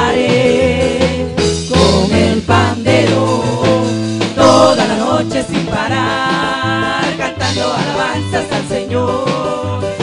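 Live worship band music: trumpet over a bass line and a steady beat, with voices singing.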